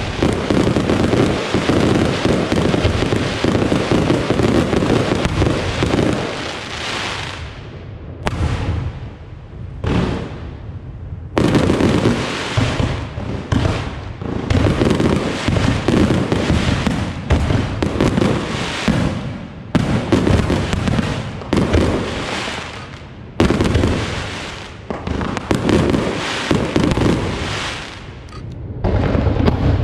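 Aerial fireworks display, with many shells bursting and crackling in rapid succession. A continuous barrage of about seven seconds is followed by repeated waves of bursts with short lulls between them.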